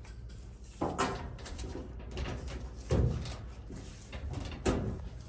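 Sheet-metal dryer cabinet panel knocking and clanking against the cabinet as it is worked onto its locating tabs: a few separate bumps, near one second in, around three seconds and again near the end.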